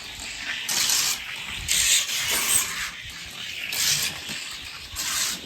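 Die-cast Ford tow truck rolling fast down a toy race track, its small wheels making a hissing rolling noise that comes in several surges as it runs.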